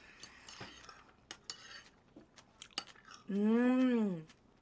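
Small clicks and clinks of a metal fork against a bowl while eating, then, about three seconds in, a closed-mouth "mmm" hum of about a second that rises and falls in pitch, the loudest sound.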